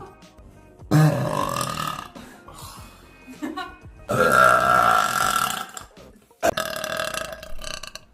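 A woman letting out a series of long, loud burps, each lasting over a second, with short pauses between them.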